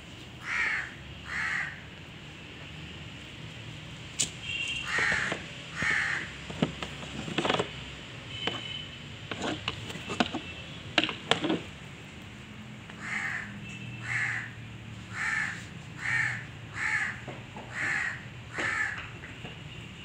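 Crow cawing repeatedly: two caws, two more about five seconds in, then a run of about seven evenly spaced caws in the second half. Sharp clicks and knocks fall in between.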